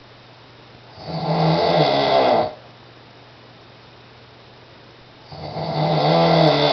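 A man snoring in his sleep: two long snores, one about a second in and one near the end, each lasting about a second and a half, with quiet breathing gaps between.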